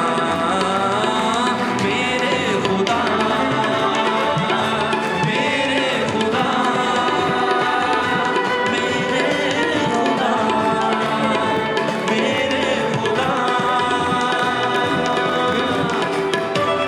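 Live band playing an instrumental interlude of a worship song: a melody over steady percussion.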